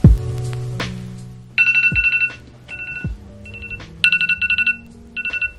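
A timer alarm ringing in repeated bursts of fast, high electronic beeps, starting a couple of seconds in. It marks the end of a 25-minute Pomodoro work session. Soft lo-fi music with a low kick drum plays underneath.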